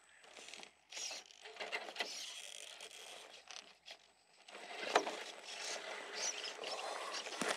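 Small radio-controlled scale crawler truck working over loose stone and gravel: irregular crunching and clicking of its tyres on the rocks, loudest about five seconds in.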